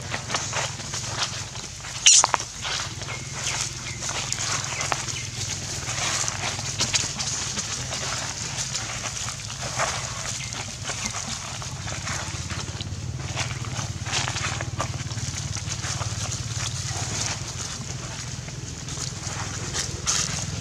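Macaque footsteps crunching and rustling through dry fallen leaves, with one sharp loud snap about two seconds in and a steady low hum underneath.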